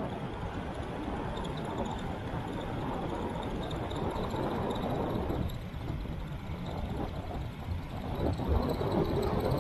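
Wind rushing over an action camera's microphone and a road bike's tyres rolling on asphalt at downhill speed, a steady rumbling rush that grows louder near the end.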